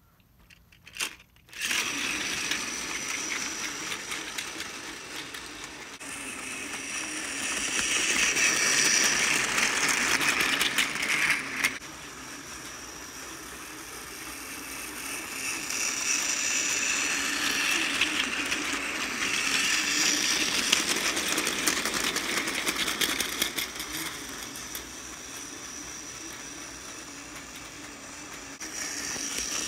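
Battery-powered Plarail Thomas toy engine running: its small motor and gears whir with a faint high whine as it pulls a train of plastic freight trucks rattling along plastic track. It starts about a second and a half in and swells and fades several times as it goes around the loop.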